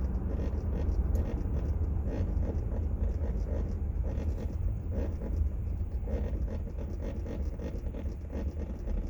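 Quick, faint clicking a few times a second from the rear air-conditioning panel of a 2004 Chevrolet Tahoe, over a steady low rumble inside the cabin.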